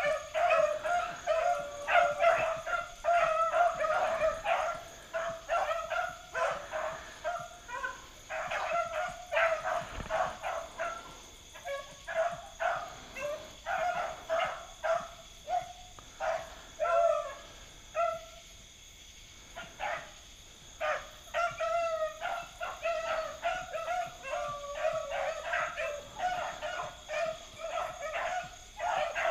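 A pack of beagles baying on a rabbit they have just jumped, many overlapping barks and bawls in quick succession: hounds in full cry running the rabbit's track. The bays drop away for about two seconds a little past the middle, then pick up again.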